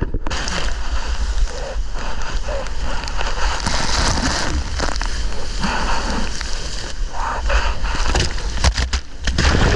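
Water rushing and splashing, with wind buffeting the action camera's microphone and a dense crackle of spray.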